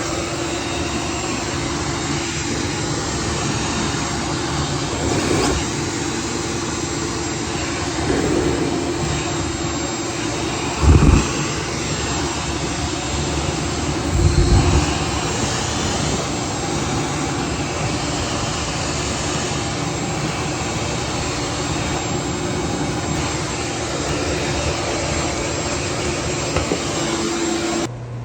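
Steady rushing whine of a motor-driven air blower or vacuum forcing air through a dryer vent during cleaning. It starts and stops abruptly, with a couple of brief low thumps about eleven and fourteen seconds in.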